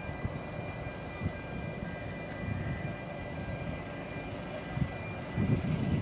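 Narrow-gauge steam train's carriages rumbling slowly over a road level crossing, with a few steady high tones held throughout, as from the crossing's warning alarm, and some louder low thumps near the end.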